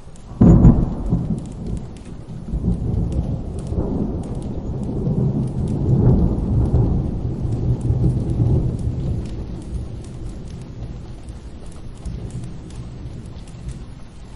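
A thunderclap about half a second in, followed by long rolling thunder that swells again near the middle and slowly fades, over steady rain.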